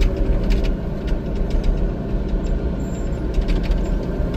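Excavator's diesel engine running steadily, heard from inside the cab, with scattered light clicks and knocks from the machine at work.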